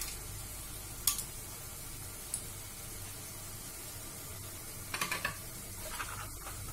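A tomato-and-onion masala sizzling gently in a frying pan, with a sharp tap about a second in and a short run of clicks and scrapes from a spatula in the pan about five seconds in.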